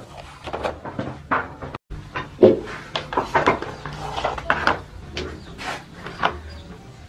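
Metal baking trays clattering and scraping as they are shifted and lifted with tongs and a wooden stick: a string of irregular knocks and scrapes, with a brief break in the sound about two seconds in.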